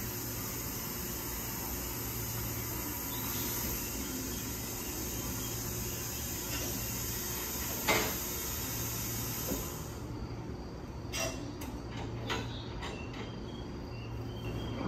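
Standing 285-series Sunrise Express electric trains humming at a station platform, the low hum coming and going every second or two, under a steady high hiss that cuts off about ten seconds in. A sharp click sounds about eight seconds in, with a few fainter clicks later.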